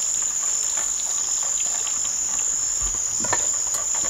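A steady, unbroken high-pitched chorus of insects trilling, with a few faint clicks.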